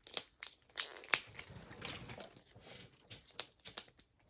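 Crinkling and tearing of a mini toy capsule's wrapping as it is opened by hand, with scattered sharp clicks and taps.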